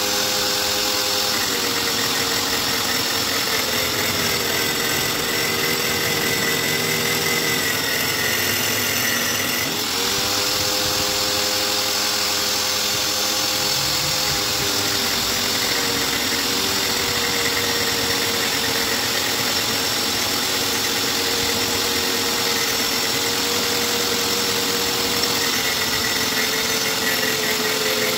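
Juicer's electric motor driving a homemade mini lathe, running steadily with a whine. Its pitch sags for several seconds and swings back up about ten seconds in.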